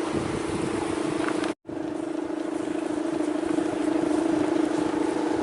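Steady humming drone of a Balinese bebean kite's hummer (guangan) vibrating in strong wind, over a haze of wind noise. The sound cuts out completely for an instant about a second and a half in, then comes straight back.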